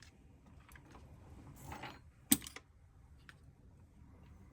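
Small clicks and taps of a phone and its parts being handled on a repair bench, with one sharper click a little over two seconds in.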